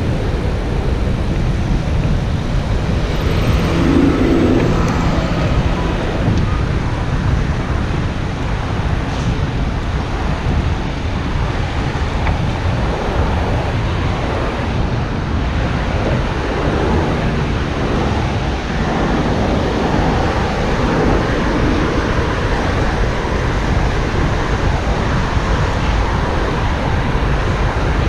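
Steady wind rumble on a moving bicycle's camera microphone, mixed with the engine and tyre noise of cars passing in the next lanes.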